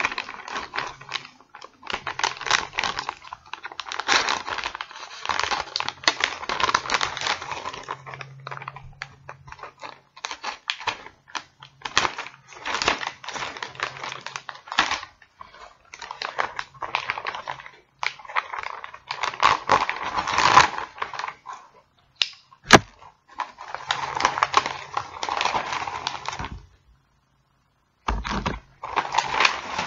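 Plastic mailer bag crinkling and rustling in irregular bursts as it is cut open with scissors and handled, with scattered small clicks and one sharp click about three-quarters of the way through.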